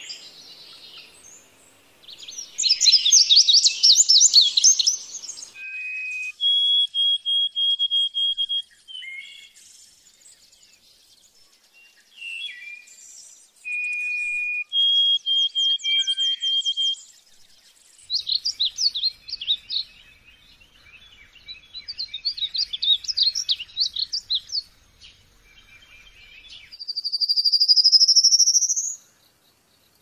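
Songbirds singing in the wild, several phrases one after another: fast chattering trills, clear whistled notes each held a second or two, and near the end one long rising whistle.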